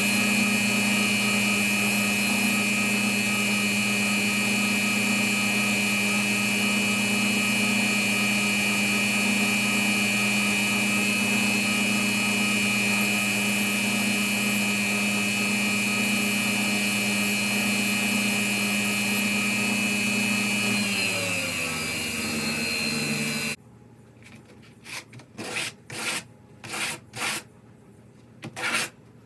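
An electric power tool running at a steady pitch, then switched off about 21 seconds in and spinning down with falling pitch until it stops. After it stops there are short, light rubbing and handling sounds.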